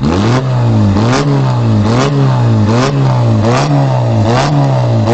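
Small car engine with a loud aftermarket exhaust revved up and down in a steady rhythm, about once every 0.8 seconds, with a sharp crack at the top of each rev.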